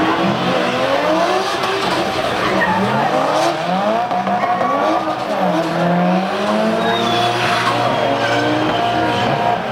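Several drift cars doing burnouts and donuts together, their engines revving hard, each note rising and falling over the others, while the rear tyres spin and squeal.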